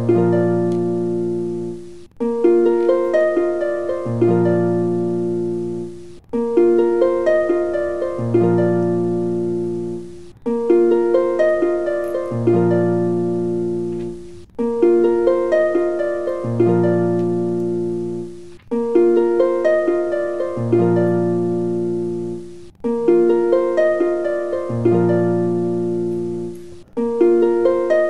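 Background music: a short phrase of plucked notes, looping about every four seconds with a brief break each time round.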